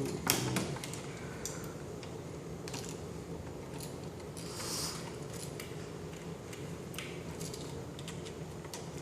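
Small metallic clicks and scrapes of a screwdriver and wires being worked on a new light switch's terminal screws, the sharpest click just after the start and a short scrape about halfway through.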